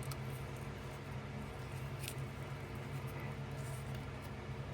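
Faint scratching and scraping of a pocket knife working at soft, rotten wood to dig out a hole, with a few short clicks over a steady low hum.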